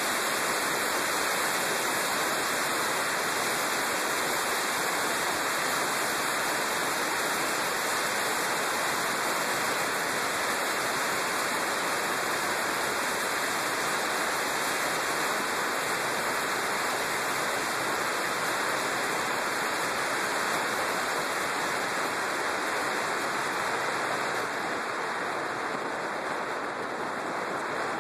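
Steady rush of wind over the camera microphone on a moving Yamaha WR250X motorcycle, with no clear engine note standing out. It eases a little near the end.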